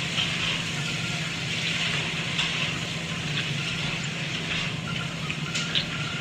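Hot oil sizzling steadily, with a few small crackles.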